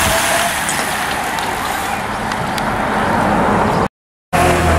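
Steady rushing noise of a passing road-race bunch and its traffic, broken near the end by a brief dropout to silence, after which a motorcycle engine runs with a low steady hum.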